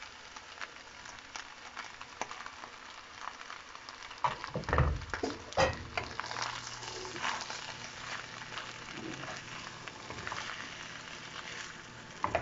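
Fried potatoes and smoked pork chop sizzling in a stainless steel pan under freshly poured chipotle sauce, with a steady fine crackle. A wooden spoon stirs and scrapes through the mixture, with louder knocks and scrapes about four to six seconds in.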